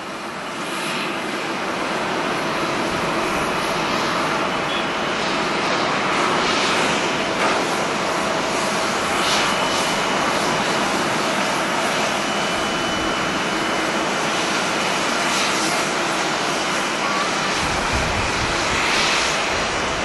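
Steady jet engine noise from a Boeing 777 airliner rolling along the runway. Strong wind gusts rumble on the microphone near the end.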